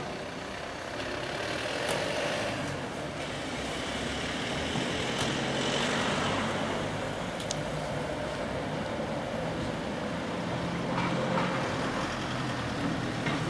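Street traffic noise with a motor vehicle's engine running nearby, a steady low hum that grows louder about four seconds in and carries on.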